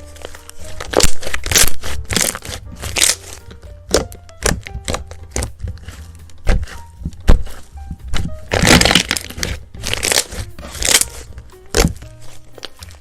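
Irregular sharp crackling and crunching noises, several loud, with a longer crackling stretch about nine seconds in, over steady background music.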